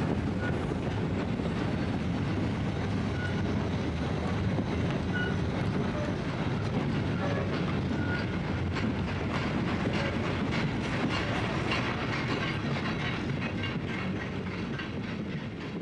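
Long freight train of open goods wagons hauled by steam locomotive 86 001, rolling past: a steady rumble of wheels with clatter over the rail joints. It fades near the end.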